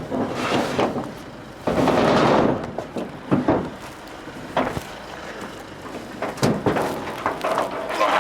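Scattered metallic knocks and clunks, with a longer scraping rush about two seconds in, from work on a vehicle recovery truck while a loaded car is being secured.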